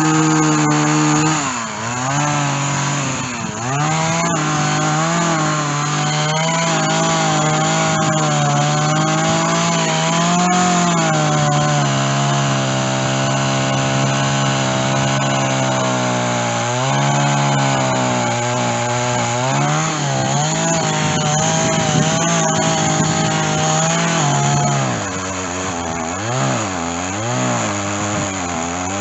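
Stihl chainsaw running at high revs and cutting through a white oak trunk with a dull chain. Its engine pitch sags briefly a couple of seconds in and again past the middle, and near the end it drops to a lower speed that rises and falls.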